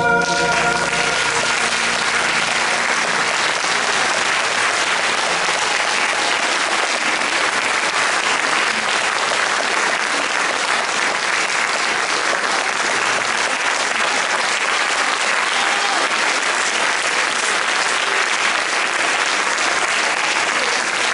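Audience applauding steadily. The last held chords of the music fade out in the first second or two.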